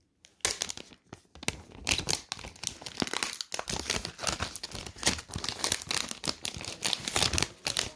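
Clear plastic wrapping being pulled and peeled off a new smart display by hand: a run of irregular crinkles and crackles, starting about half a second in.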